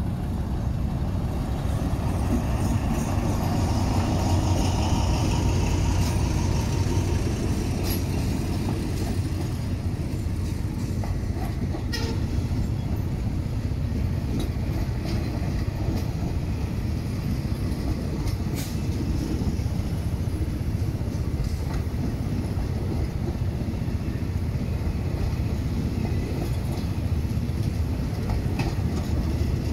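Diesel-hauled passenger train passing over a level crossing: a steady low rumble of the locomotive and carriages, louder over the first several seconds as the locomotive goes by, with a few sharp clacks of wheels on the rails.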